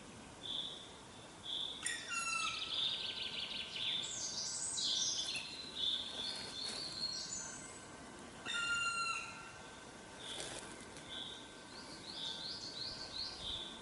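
Several wild birds singing in a forest. One repeats a short high call note about once a second, while others sing longer songs of falling and trilled phrases over it, twice rising to a burst of song.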